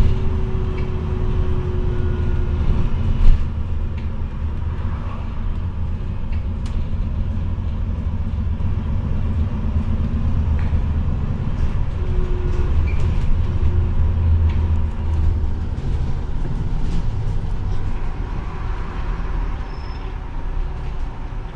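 Cabin sound of an Alexander Dennis Enviro400 MMC double-decker bus (Euro 6 diesel, Voith automatic gearbox) under way: a steady low drone of engine and drivetrain with road noise and interior rattles. A sharp knock about three seconds in.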